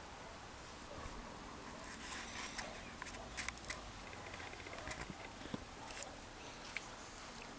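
Irregular sharp clicks and crackles, a dozen or so scattered through the middle seconds, over a steady background hiss.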